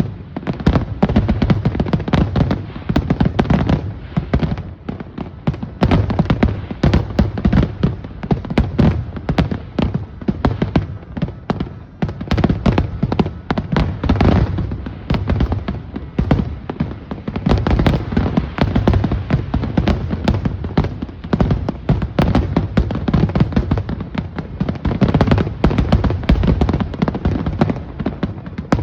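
Aerial fireworks in a dense finale-style barrage: rapid, overlapping booms and crackling bangs, one after another without pause.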